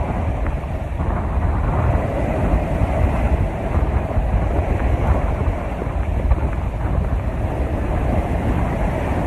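Strong storm wind blowing steadily without letup, with low rumbling buffeting on the microphone.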